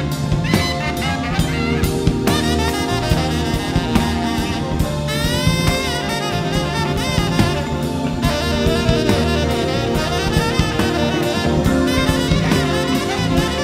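Tenor saxophone soloing in fast jazz-fusion runs, with a quick rising run about five seconds in, played live over drum kit and electric bass.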